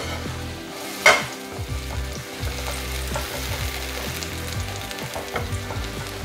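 Diced tomatoes sizzling in hot vegetable oil in a frying pan while a silicone spatula stirs them, with one sharp knock about a second in.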